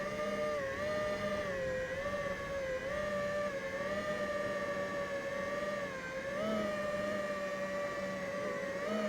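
FPV racing quadcopter's brushless motors and propellers whining in flight, the pitch drifting up and down with the throttle.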